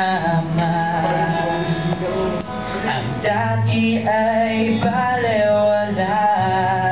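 A man singing a held, gliding melody into a microphone over acoustic guitar accompaniment.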